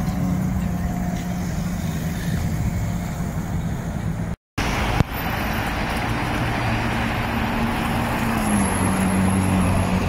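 Ferrari F12 Berlinetta's V12 running at low revs as it pulls away, a steady low engine note over street traffic. The sound cuts out briefly about halfway through. After that, another Ferrari's engine and the passing traffic are heard, its note dipping near the end.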